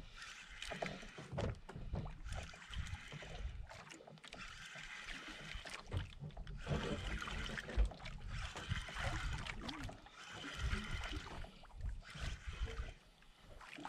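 Water lapping and splashing against a small fishing boat, surging unevenly, with a low irregular rumble underneath.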